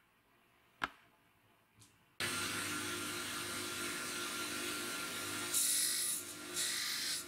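Belt grinder motor running steadily, starting abruptly about two seconds in. From about halfway, a steel knife blade is pressed against the abrasive belt in short passes, each a harsh high-pitched grinding hiss.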